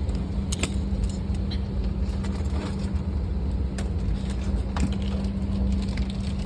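Steady low rumble of an airliner cabin, with a constant hum over it and a few small clicks.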